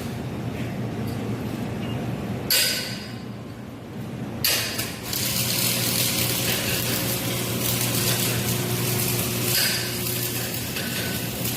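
Arc welding crackling and hissing steadily over a low machine hum, with the crackle dropping away for about two seconds near the start before picking up again.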